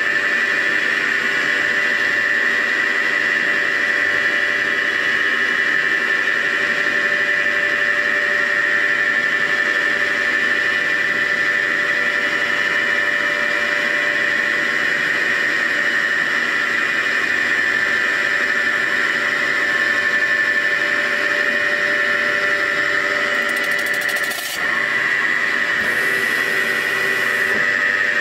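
CNC milling machine spindle turning a boring bar, giving off a steady high-pitched whine with a brief dip about three-quarters of the way through.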